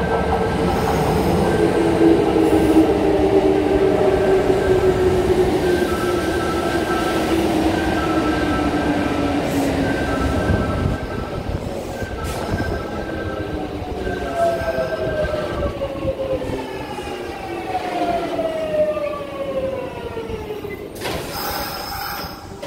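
Kintetsu 1233 series and then 1249 series electric commuter trains pulling into the platform, their traction inverter motor whine falling steadily in pitch as each brakes to a stop. A two-note tone repeats about once a second through the first two-thirds, and a short burst of air hiss comes near the end.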